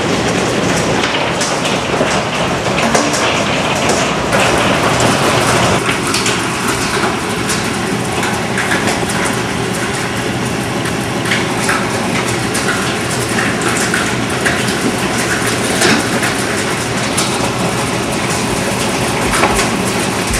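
Heavy hailstorm with rain: a dense, steady clatter of many hailstones striking the house, window glass and street, heard from indoors behind the window.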